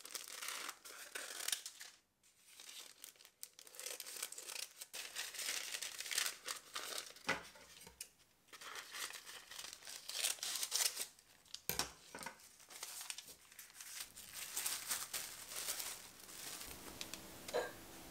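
Plastic wrap and baking paper crinkling and rustling as they are handled, in irregular crackly strokes throughout.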